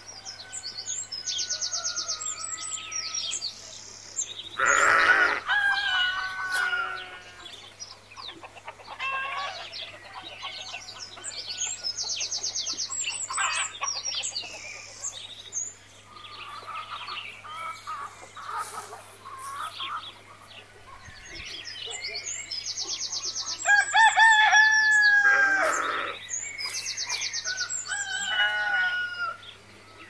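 Farmyard ambience of chickens: a rooster crows about five seconds in and again near the end, over hens clucking and small birds chirping. A steady low hum runs underneath.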